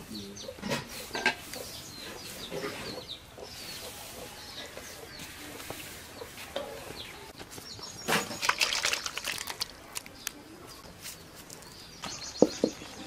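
Chickens clucking and small birds chirping, with scattered light clicks. About a second before the end comes a sharp knock as a steel wok is set down on a clay stove.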